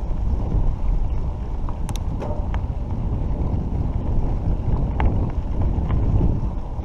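Wind buffeting the microphone together with a mountain bike's tyres rumbling over a rough dirt road, a steady low noise. A few sharp clicks and rattles come about two seconds in and again about five seconds in.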